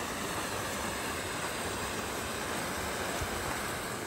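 Sled dragged over snow-covered ice, a steady scraping hiss.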